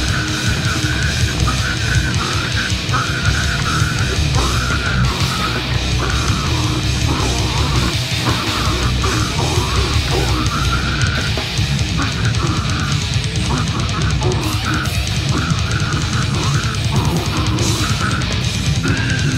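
Deathgrind band playing live at full volume: distorted electric guitar, bass guitar and drum kit with a vocalist shouting harsh vocals over them without a break.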